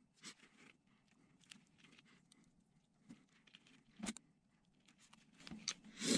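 Faint clicks and crackles of a hand crimping tool and small butt connectors being handled and squeezed onto stripped wire ends, with a sharper click about four seconds in and louder rustling near the end.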